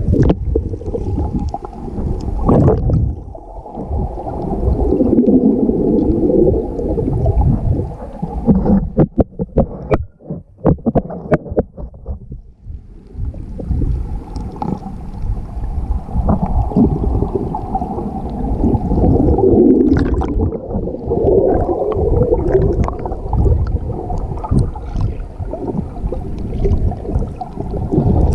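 Muffled underwater water noise picked up by a submerged GoPro Hero 5: a dense low rumble and gurgling of moving water, with a quick run of clicks and knocks about nine to eleven seconds in, then a brief quieter spell.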